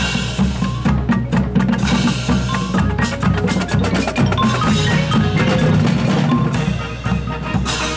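High school marching band playing, with percussion to the fore: drums and mallet keyboards strike a fast, busy rhythm over sustained low bass notes.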